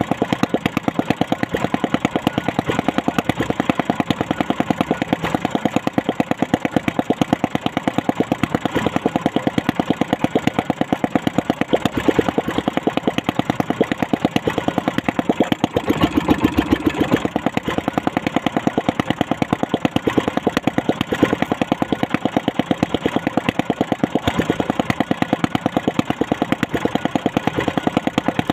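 Small boat engine idling steadily, with a fast, even chugging beat.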